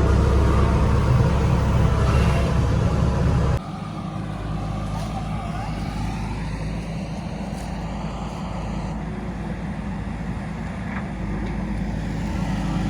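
JCB 3DX Super backhoe loader's diesel engine running under load, loud for the first three and a half seconds, then dropping abruptly to a lower, steady level.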